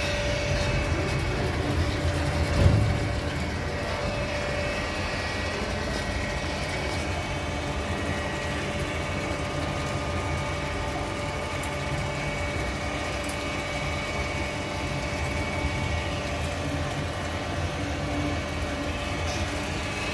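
Macrotech Filterall MTUHV 3000 transformer oil filter machine running with a steady mechanical hum and a few held tones. A brief low thump comes about two and a half seconds in.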